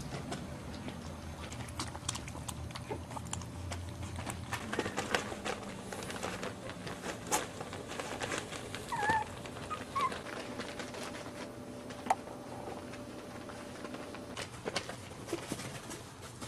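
Chihuahua puppies moving about and playing, with scattered small clicks and knocks and a couple of brief high puppy squeaks about nine to ten seconds in.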